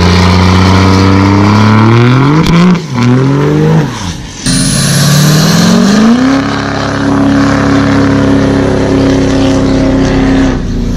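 Diesel pickup truck engines revving hard during burnouts, with the rear tyres spinning on asphalt. The sound breaks off abruptly twice. Then one engine climbs and holds at high revs for several seconds before dropping near the end.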